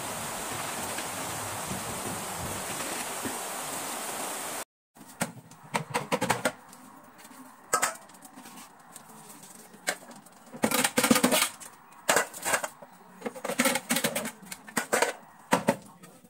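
A steady rushing noise that cuts off abruptly about five seconds in, followed by scattered clatters and knocks of household items being handled.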